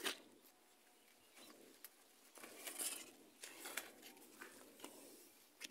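Faint, irregular rustles and clicks from eggplant leaves and stems brushing against a handheld phone and its microphone as it is moved among the plants, busiest about halfway through.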